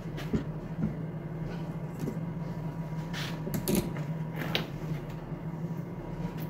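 Plastic and metal parts of a Poulan Pro chainsaw being handled and taken apart on a workbench: a scatter of light clicks and knocks, the loudest a little past halfway, over a steady low hum.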